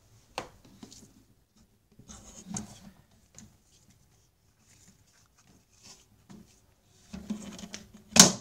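Close handling noises from a hand-held camera and the objects it brushes: soft rubbing and rustling in two spells, a click about half a second in, and a sharp knock near the end, the loudest sound, as the lens is covered.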